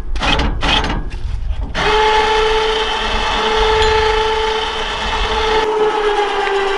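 Electric winch motor starting a couple of seconds in and running with a steady whine.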